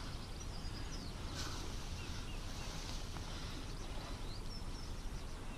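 Steady outdoor background noise on a riverbank, with a few short, faint bird chirps scattered through it.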